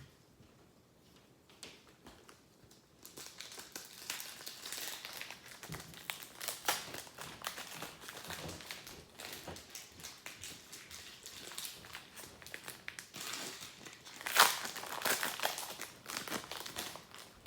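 Foil wrapper of a hockey card pack crinkling as it is torn open and handled, starting about three seconds in, with a sharper crackle near the end.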